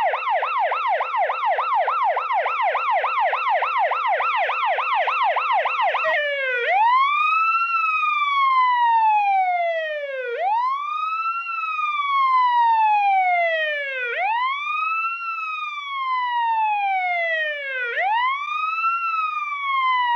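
Emergency vehicle siren in fast yelp, its pitch going up and down about three times a second, switching about six seconds in to a slow wail that sweeps up quickly and falls away over about four seconds, again and again.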